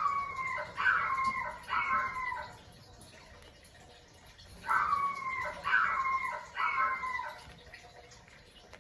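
Recorded howl of a Cocker Spaniel puppy: three short, slightly falling howls in quick succession, played twice about five seconds apart.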